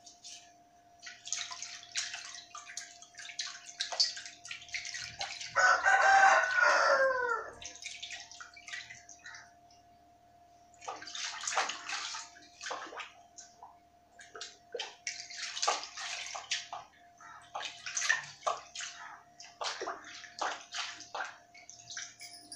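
Water splashing and sloshing in a basin as small brass lamps are rinsed by hand, in short spells with brief pauses. About six seconds in, a rooster crows once, a single call falling in pitch that is the loudest sound.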